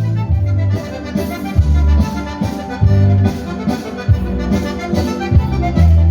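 Accordion-led dance music, with a bass line that steps from note to note about once a second under the melody.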